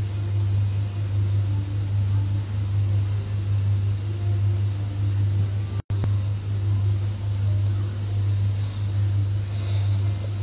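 A steady low hum with no speech over it, cutting out for a split second just over halfway through.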